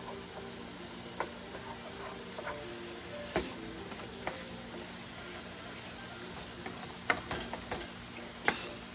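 Meat frying in a pan on the stove, a steady low sizzle, with a spatula knocking and scraping against the pan a few times as the meat is stirred.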